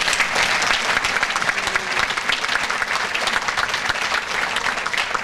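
Banquet audience applauding steadily, many hands clapping at once.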